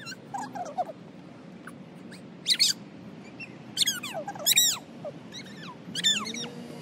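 A bird calling: several short, shrill calls, each falling steeply in pitch, spaced about a second apart.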